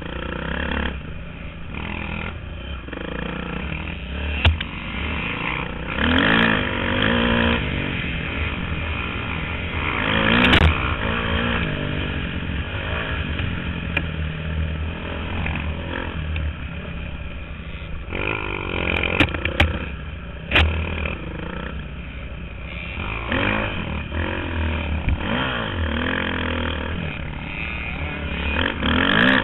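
Dirt bike engine heard from on board while racing over rough trail, revving up and falling back again and again as the throttle is worked, with knocks and clatter from the bumps.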